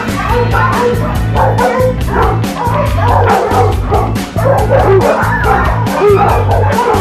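Several dogs barking and yipping over background music with a steady beat.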